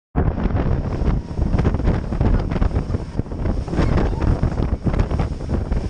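Loud wind buffeting the microphone of a small open motorboat speeding through the water. Spray splashes up beside the hull in irregular gusts.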